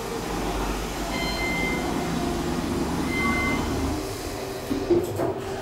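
KONE Monospace glass traction elevator closing its doors and setting off: a low rumble from the car with a few short electronic beeps, and a couple of clicks near the end.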